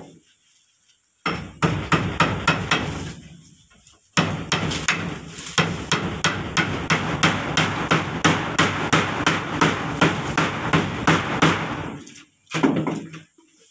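Hammer striking repeatedly in quick, even blows, about three a second, with a short pause about three seconds in and a last lone blow near the end.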